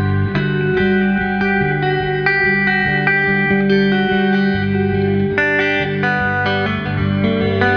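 Background music led by a plucked guitar, notes changing steadily throughout.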